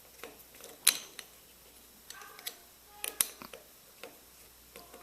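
Small sharp clicks and taps from an old pin-tumbler lock and its pick and tension tool being handled. The loudest click comes about a second in, and a quick cluster follows a little after three seconds.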